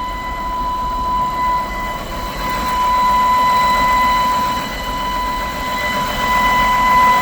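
BMW N52 3.0-litre inline-six idling with a loud, steady whistle, one high tone with overtones. The owner puts it down to a leaking valve cover gasket; the whistle stops when the oil cap is off.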